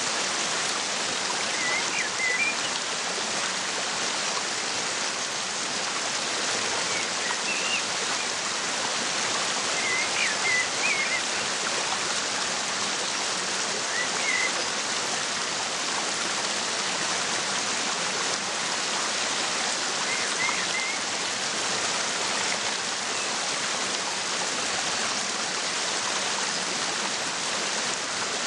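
Waterfall running as a steady rush of water, with brief bird chirps a few times over it.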